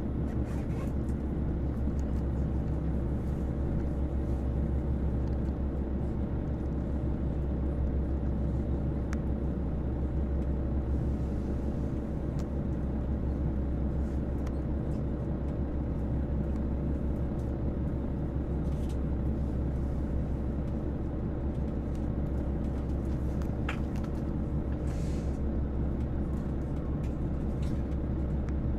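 Steady low drone heard inside a KiHa 281 series diesel railcar standing at an emergency stop, its diesel engines idling, with a few faint clicks.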